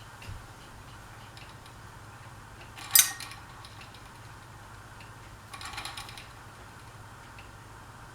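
Harbor Breeze Pulsar ceiling fan running with a steady low hum. There is a single sharp click about three seconds in, the loudest sound, and a short rattle of clicks near six seconds.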